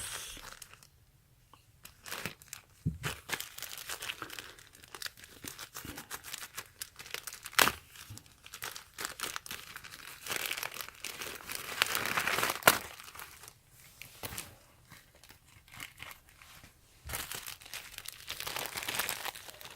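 Small parcel's packaging being opened by hand: irregular crinkling and tearing with scattered clicks and a couple of sharper snaps, pausing briefly now and then.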